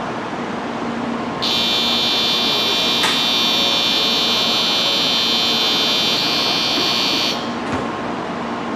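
Shinkansen platform departure bell: a steady, high electric ringing that starts about a second and a half in and cuts off about six seconds later, signalling that the train doors are about to close. A soft thump follows shortly after it stops.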